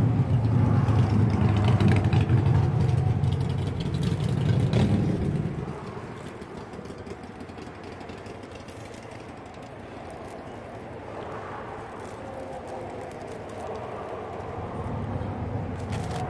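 Low rumble of a motor vehicle running close by, dropping away about six seconds in, then a quieter outdoor background.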